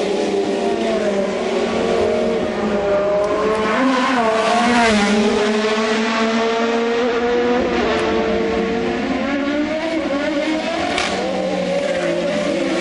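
IndyCar race cars' turbocharged V6 engines running on a wet track, several engine notes overlapping and sliding up and down in pitch as the cars accelerate and lift, over a steady hiss.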